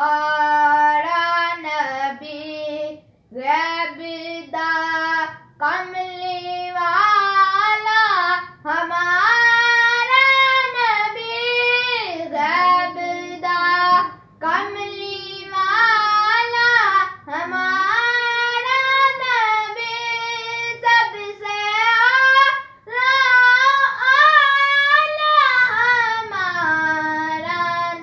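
A boy singing a naat, a devotional poem in praise of the Prophet, solo and unaccompanied, in long gliding melodic phrases broken by short pauses for breath.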